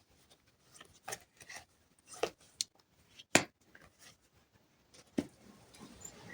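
Tarot cards being handled and laid down: a scattering of short, soft slaps and rubs, the sharpest about three seconds in.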